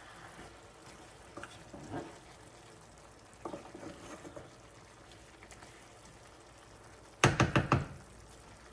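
A cooking utensil working through chicken and vegetables in a pot, with a few light knocks and scrapes, then a quick run of about six loud, sharp taps near the end as the spoon is knocked against the pot's rim.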